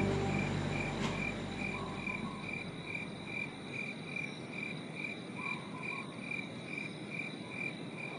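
Night chorus of insects and frogs: a steady high trill with a short chirp repeating about three times a second, over a soft hiss.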